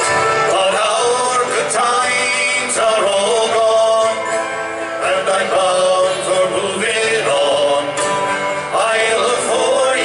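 Live folk music: men singing over a strummed mandolin and acoustic guitar.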